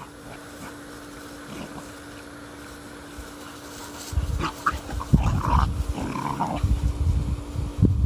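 Puppies play-fighting, with growls and a few short yelps; the sounds grow loud about halfway through.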